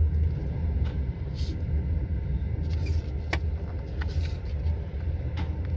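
Steady low rumble of a moving night-train sleeper coach heard from inside the compartment, with a few light clicks and short rustles as a paper booklet is handled.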